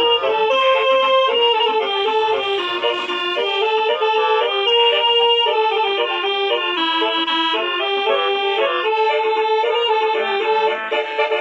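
Basuri 'telolet' multi-tone bus horn playing a tune: several tones sounding together, stepping up and down from note to note without a break.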